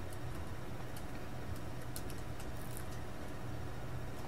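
Computer keyboard being typed on, with faint, irregular key clicks, over a steady low hum.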